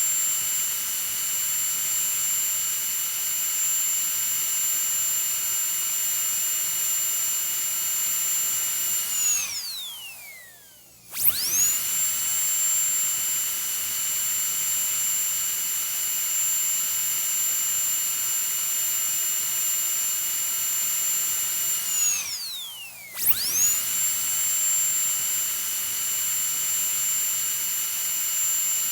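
Dentist's high-speed drill whining at a steady high pitch. It spins down with a falling pitch twice, about ten seconds in and again about 22 seconds in, and each time starts up again within a second or so.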